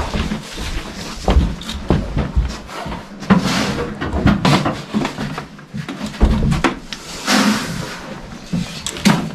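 Handling noise at horse-feeding time in a barn: scattered wooden knocks and bumps from stalls and feed containers, with two short swishing rustles about three and seven seconds in.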